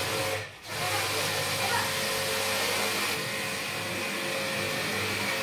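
Electric jet-pump pressure washer running steadily, its motor humming under the hiss of the water spray. The sound drops out briefly about half a second in.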